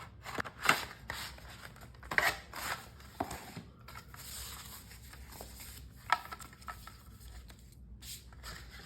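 A screen-protector box and its packaging being opened and handled: light rustling and scraping of card and plastic, with a few sharp clicks.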